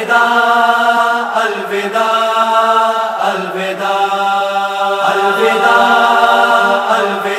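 Voices chanting long, steady held notes: the a cappella vocal drone that backs a Shia noha recitation. The pitch shifts slightly at a few short breaks, roughly every one and a half to two seconds.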